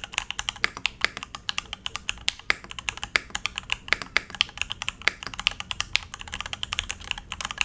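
Fast typing on a Thunderobot K98 mechanical keyboard: a quick, uneven run of sharp keystroke clicks, several a second.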